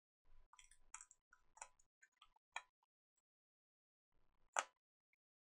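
Faint, scattered ticks and clicks of small parts being handled on a workbench, a run of them in the first three seconds and one sharper click about four and a half seconds in.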